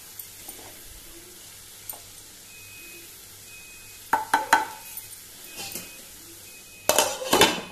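Wooden spatula stirring and scraping fenugreek-leaf bhaji in a non-stick frying pan over a faint, steady sizzle. A pair of sharp knocks comes about four seconds in, and a louder clatter near the end.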